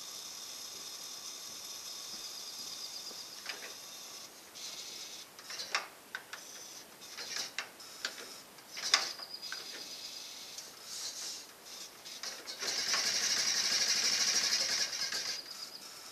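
A 1926 Ford Model T being hand-cranked for a cold start: a high buzz from its trembler ignition coils comes and goes, with sharp clicks and knocks from the crank. The buzz is loudest and steadiest for about three seconds near the end, before the engine has caught.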